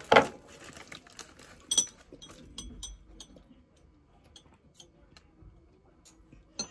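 Close-miked eating of a sandwich: two loud mouth sounds from a bite right at the start, then quieter chewing with scattered small clicks.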